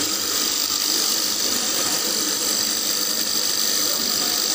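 Floating fish feed extruder machine running steadily, a continuous mechanical noise with a steady high whine over it.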